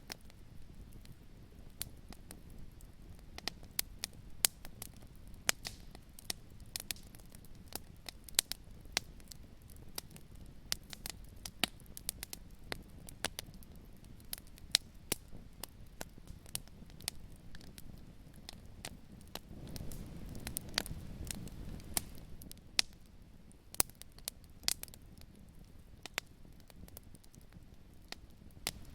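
Wood fire crackling in a fireplace: irregular sharp pops and snaps over a low, steady rumble of flames, which swells for a couple of seconds about twenty seconds in.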